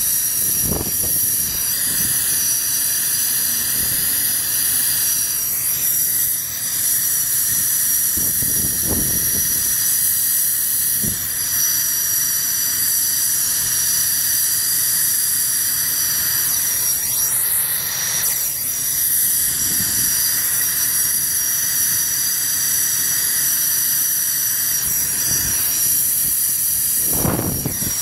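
TurboTorch brazing torch flame burning with a loud, steady hiss while it heats a copper water pipe joint being brazed with filler rod.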